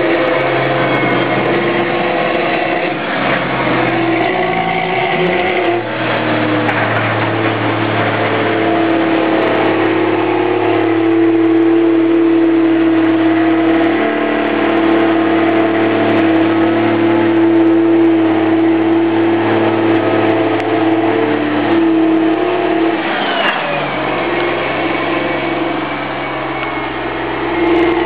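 Challenger MT765C tracked tractor's diesel engine working under load while it pushes and packs grass silage. Its pitch shifts about five seconds in and again near the end as the tractor changes speed and direction.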